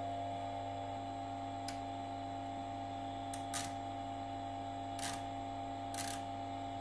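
Steady hum of the Keithley 619 electrometer's loud cooling fan, with a few faint clicks as a knob on a bench power supply is turned.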